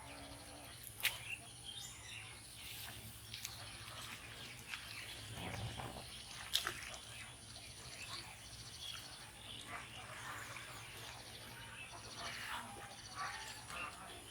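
Scattered bird chirps over rural outdoor ambience, with a steady high-pitched whine. Two sharp clicks stand out, about a second in and again about six and a half seconds in.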